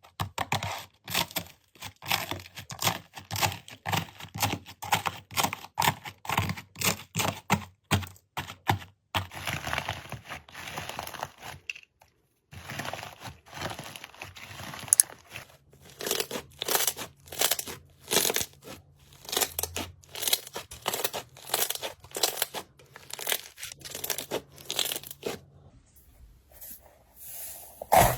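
Slime being squeezed, pressed and pulled by hand, giving rapid, irregular sticky crackles and pops. There is a short silent break about twelve seconds in.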